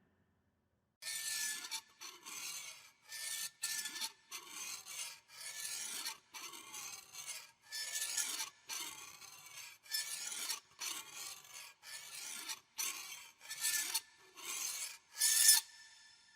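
Horror-film sound effect of rasping, scraping strokes, repeated about one and a half times a second, each with a faint squeak. The loudest stroke comes near the end.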